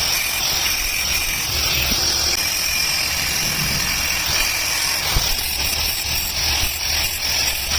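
Steady machine noise, a constant high hiss over a low rumble, with one sharp knock about five seconds in.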